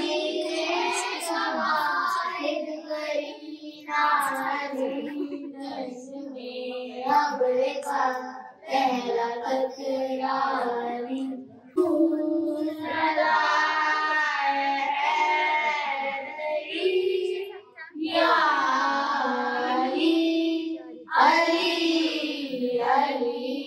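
Young children singing a naat, a devotional Islamic song, into a microphone. The singing comes in long phrases with short breaks between them.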